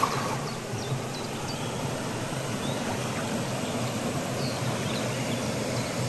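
Waterfall water rushing steadily.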